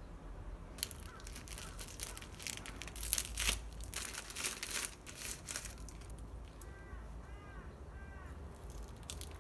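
Crinkling and rustling of wrapping being handled, a dense run of crackles for about five seconds. Near the end a bird chirps a few short notes.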